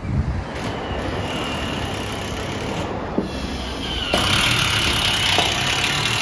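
Steady road traffic noise, growing louder about four seconds in as a vehicle passes, with a few faint light knocks.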